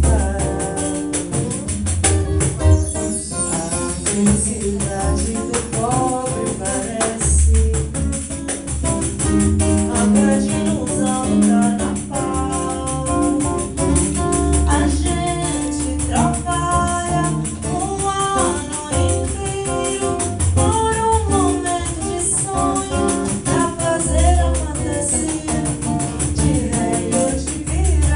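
Live acoustic Brazilian samba/bossa nova music: acoustic guitar and hand percussion keep a steady rhythm with low bass notes, while a voice sings a melody over it.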